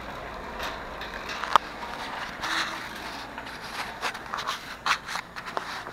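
Wire shopping cart pushed across a concrete store floor: its wheels rolling and the basket rattling, with scattered sharp clacks, the sharpest about a second and a half in.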